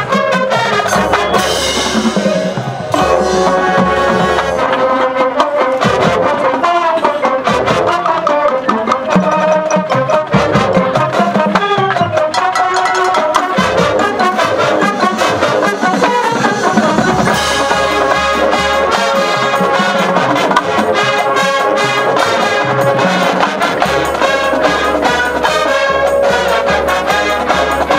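High school marching band playing its competition field show: full brass section holding sustained chords over percussion.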